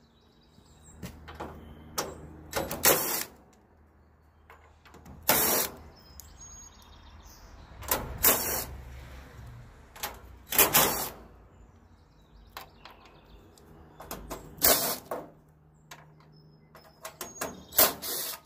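DeWalt cordless drill driving out sheet-metal screws from the control panel of an AC condenser unit in about six short bursts, with small clicks and rattles between them.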